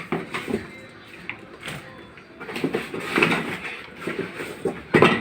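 Hard plastic parts of an electric blower-vacuum kit being handled and set down: irregular knocks, clacks and rustling, with a louder clatter near the end.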